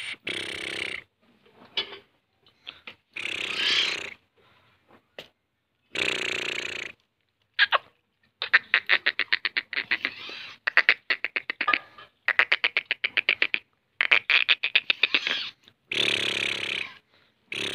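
Black francolin calling: a run of noisy, scratchy bursts about a second long each, and in the middle stretch rapid trains of short clicking notes, about ten a second.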